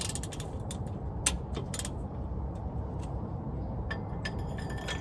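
Scattered sharp metallic clinks and taps of hand tools and hardware against the truck's rear shock mounts, over a steady low rumble.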